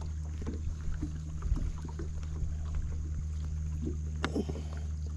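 Steady low motor hum on a small fishing boat, with scattered light knocks and clicks as a small, flopping crappie is handled and unhooked; the sharpest knock comes a little over four seconds in.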